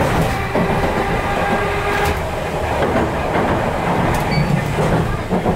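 Chikuho Electric Railroad 3000-series electric railcar running along the track, heard from the cab: a steady rumble of wheels on rail with a few clicks over the rail joints, and a thin steady tone that stops about two seconds in.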